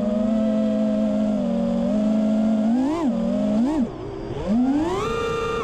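5-inch FPV quadcopter's four T-motor F40 Pro 2400kv brushless motors and tri-blade props whining as it flies, heard from the onboard camera. The whine holds a steady pitch, then rises and falls in two quick throttle punches about three seconds in, dips, and climbs to a higher pitch that is held near the end.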